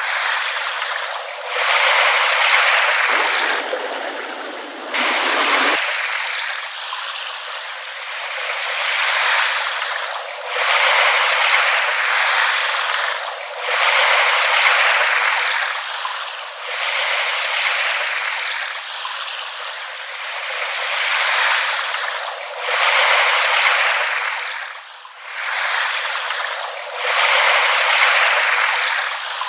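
Small waves lapping on a shore: a hiss of water that swells and falls back every two to three seconds.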